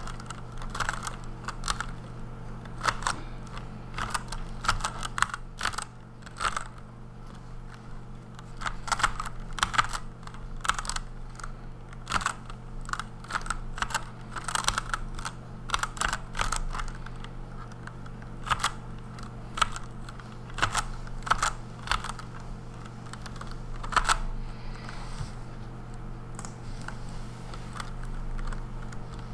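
Fast typing on a Redragon Kumara K552 mechanical keyboard with lubed Outemu Red linear switches: quick, irregular key clacks that thin out for a few seconds near the end, over a steady low hum.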